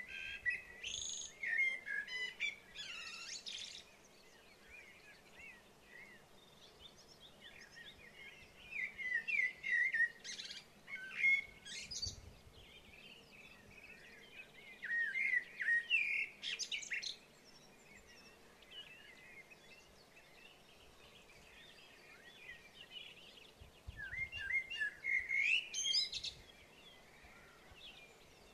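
A songbird singing short, quick twittering phrases, four bursts a few seconds apart, with a faint steady hum underneath.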